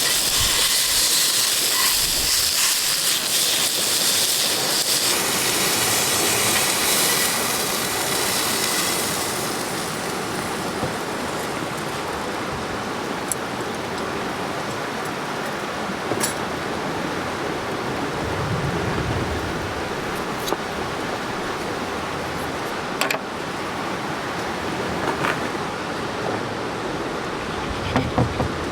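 Meat sizzling on a hot pan over a campfire. The strong sizzle dies down about nine seconds in, leaving a softer steady hiss broken by a few sharp crackles.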